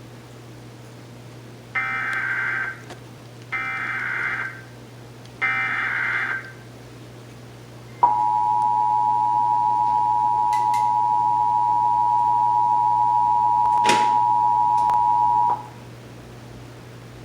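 Emergency Alert System test tones: three bursts of about a second each of SAME header data, then the two-tone EAS attention signal (853 and 960 Hz together) sounding steadily for about seven and a half seconds before cutting off sharply.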